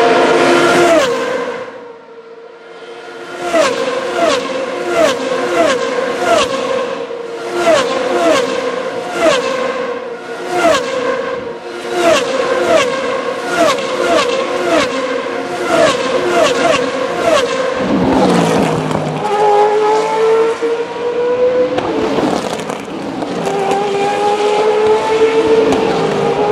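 Formula Renault 3.5 race cars' 3.4-litre naturally aspirated V8 engines at high revs. A car passes close at the start, then a group of cars changes down through the gears under braking in a rapid string of short blips, each dropping in pitch, about two a second. From a little past the middle, the engines climb steadily in pitch as cars accelerate away.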